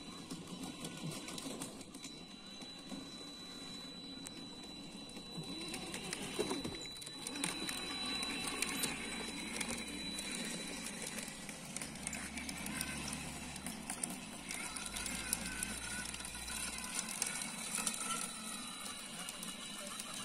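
Radio-controlled scale model BT tank driving: its drive motors whine steadily and its tracks clatter with many fine clicks, the running noise growing louder in the second half.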